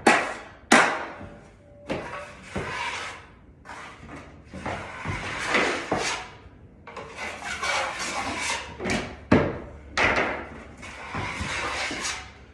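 Drywall knife scraping joint compound along a wall corner in repeated wiping strokes of about a second each, with a few sharp knocks between strokes.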